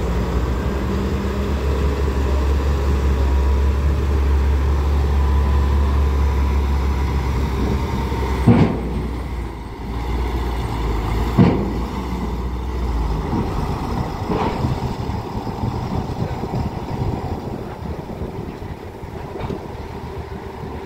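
Loaded heavy dump truck's diesel engine running as the truck drives up a steel ferry ramp, with two loud clanks about eight and eleven seconds in as its wheels cross onto the ramp. The engine's low rumble drops away after about thirteen seconds as the truck moves into the ferry, leaving lighter knocks.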